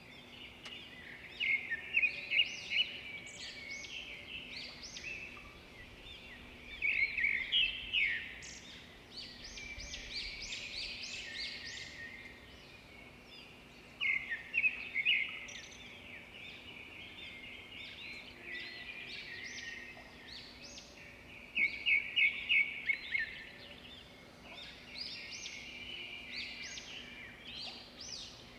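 Small birds chirping and twittering: a busy chorus of quick, high calls, swelling in rapid trills every several seconds.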